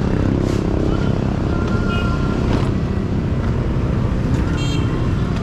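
Motorcycle engine running steadily on the road, a dense low rumble of engine and road noise with no let-up.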